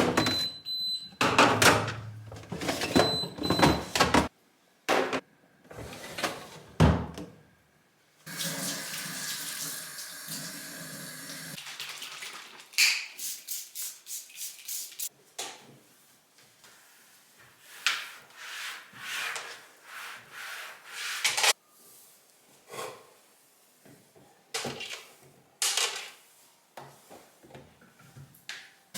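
Household cleaning and handling noises: a string of separate knocks, clicks and clatters of objects being picked up and set down, with a few seconds of steady rushing noise about a third of the way in.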